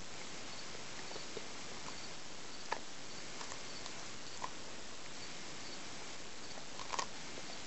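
Dog gnawing a corn cob: a few short, sharp crunches, the loudest a quick cluster near the end, over a steady hiss.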